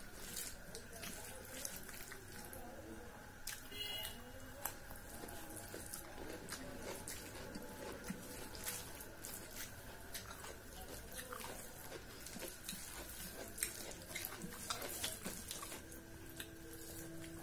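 Cooked rice and curry being squished and mixed by hand on a stainless steel plate: irregular wet squelches and small clicks of fingers against the metal, with chewing.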